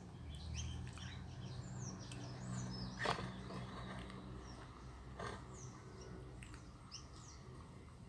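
Small songbirds chirping around a feeder: many short, high, falling chirps, with a sharp knock about three seconds in and a weaker one about two seconds later, over a low rumble.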